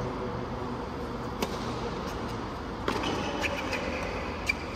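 A tennis rally on a hard court: three sharp pops of the ball being struck, about a second and a half apart, the last the loudest. Short high squeaks of shoes on the court come between the later hits, over the low hum of a quiet arena crowd.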